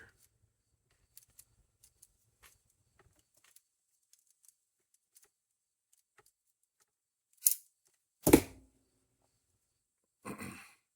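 Snare wire being twisted together by hand around a metal arrow field point: faint scattered ticks and scrapes of wire. A sharp click comes about seven and a half seconds in, then a louder knock with a short ring, and a brief rustle near the end.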